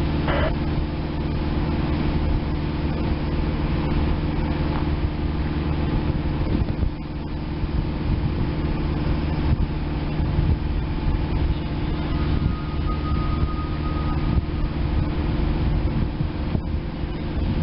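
A steady, even low hum of an idling engine or motor, with several low tones held together and no rise or fall.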